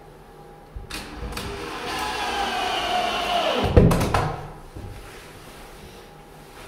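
Cordless drill driving a screw into a wooden stud to fasten an electrical box. The motor's pitch falls as the screw tightens, for about two seconds, and it stops with a heavy thump near the middle.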